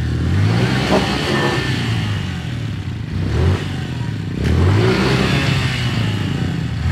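Trail motorcycle engine revving repeatedly, its pitch rising and falling several times as the throttle is opened and closed, with a sharp knock about four and a half seconds in.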